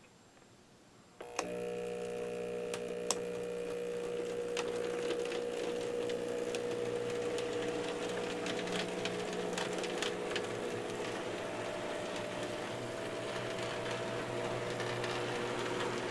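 N-scale model diesel locomotive's small electric motor starting about a second in and running at a steady hum, with scattered clicks from the wheels on the track.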